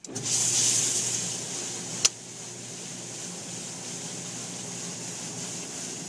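Hobart commercial dishwasher starting its wash cycle: the wash pump comes on suddenly with a rush of spraying water over a steady motor hum. A sharp click comes about two seconds in, after which the spray and hum settle to a steady, quieter running sound, described as nice and quiet.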